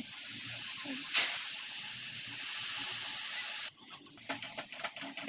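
Milky ginger tea boiling in a steel pot, a steady hiss that cuts off suddenly after about three and a half seconds. Then light clinks of a steel tea strainer being taken off a kitchen rack.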